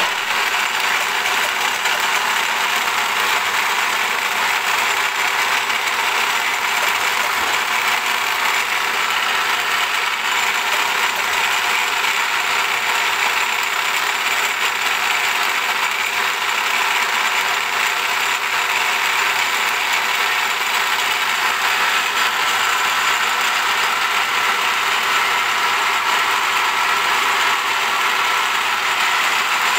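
Milling machine spindle running with an end mill cutting the bore of a 4340 chromoly steel gear blank while the rotary table is turned by hand: a steady machining noise with a few held tones.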